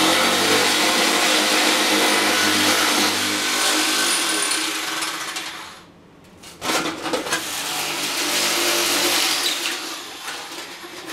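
Electric sheet metal shears running as they cut along a marked line on a section of single-wall stove pipe: a steady motor hum with the grind of the cut metal. There are two runs, broken for under a second near the middle, and the second tails off near the end.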